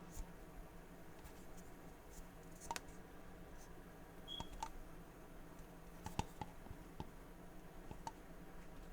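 Sparse light clicks and taps from handling a boxed vinyl Funko Pop figure, with a faint steady room hum underneath.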